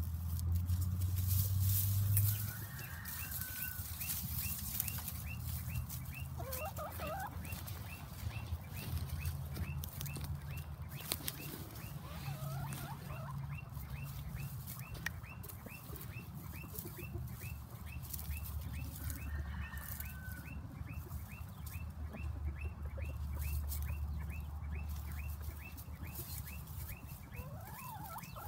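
Chickens foraging in dry grass: a few short chicken calls and crackling of dry straw, over a steady low rumble that is loudest in the first two seconds. A fast regular ticking, about two or three a second, runs in the background from a few seconds in.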